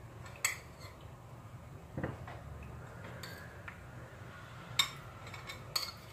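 Light clinks and knocks of a ceramic bowl and steamed potato pieces against a plate as the vegetables are arranged by hand: about five short, separate taps, the sharpest a little before the end.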